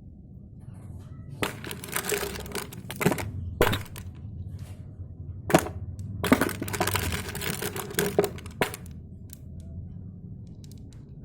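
Lathe running with a steady low hum, with two stretches of harsh scraping as the tool cuts, the first about a second and a half in and the second about six seconds in. Sharp cracks come at about 3.5, 5.5 and 8.5 seconds.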